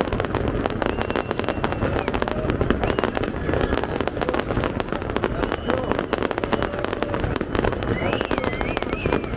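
Fireworks display going off in a dense, continuous barrage of bangs and crackles, many per second with no break, under the murmur of a watching crowd.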